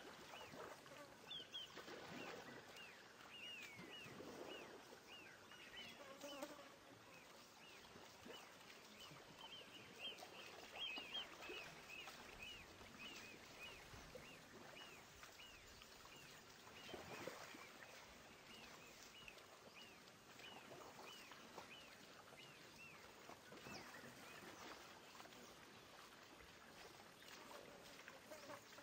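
Faint natural ambience: a high, short downward chirp repeated about twice a second, steady throughout, over quiet outdoor background.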